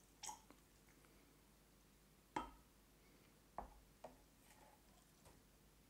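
Near silence broken by a few soft clicks and knocks as a plastic syringe and chemical bottles are handled. The loudest knock is about two and a half seconds in.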